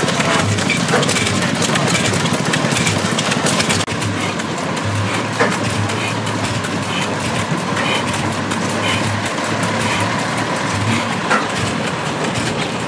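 Blackstone stationary oil engine running steadily. The sound drops a little, abruptly, about four seconds in.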